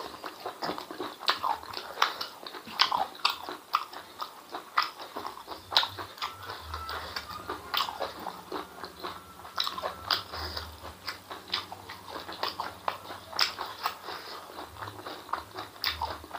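A person chewing a mouthful of spicy intestines and rice: irregular wet mouth clicks and lip smacks, several a second.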